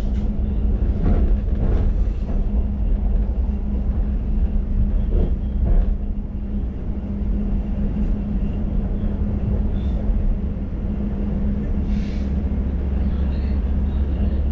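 Class 345 Elizabeth line train heard from inside the carriage while running between stations: a steady low rumble with a constant hum.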